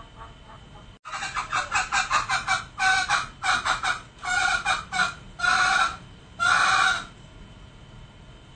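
Male green junglefowl calling: a quick run of clucking notes starting about a second in, then clusters of calls, and two longer calls near the end.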